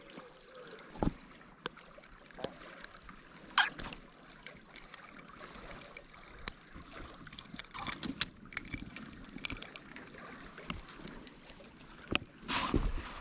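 Water trickling and lapping, with scattered small knocks and clicks and a louder splashy rush near the end.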